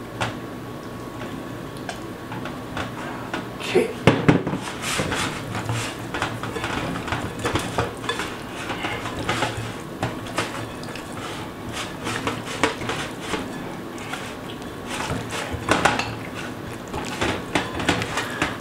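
Kitchenware clinking and knocking in a run of small irregular taps while a raw chicken is handled and seasoned, with a louder cluster of knocks about four seconds in. A faint steady hum runs underneath.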